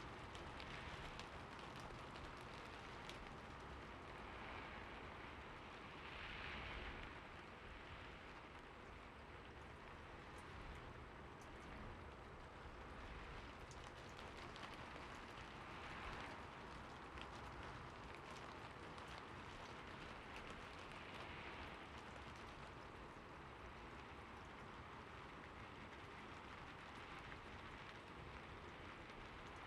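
Light rain falling steadily: a faint, even hiss dotted with many small, separate drop ticks, swelling slightly now and then.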